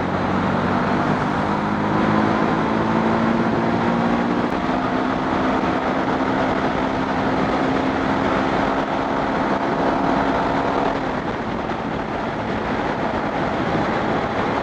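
Honda X-Blade's single-cylinder engine running under way, its note climbing slowly over the first few seconds, then holding steady and easing off about eleven seconds in. A steady rush of wind noise runs under it.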